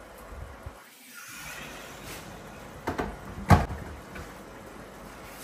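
Water from an electric kettle poured into a hot frying pan of noodles, a faint hiss, followed about three seconds in by a few sharp knocks of kitchenware, the loudest as the kettle is set back down on the counter.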